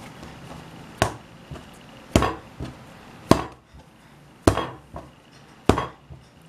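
Homemade white glue slime slapped down onto a table five times, about one smack every second.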